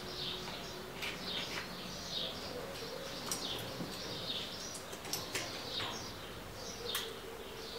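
Small birds chirping over and over in quick short calls, with a few sharp clicks among them.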